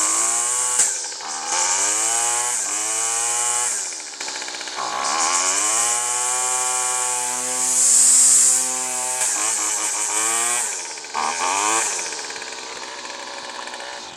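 Weed Eater Featherlite FL26 string trimmer's small two-stroke engine running just after starting, its throttle blipped again and again so the engine speed rises and falls. The highest rev comes about 8 seconds in, and after about 12 seconds it settles to a lower, steadier speed.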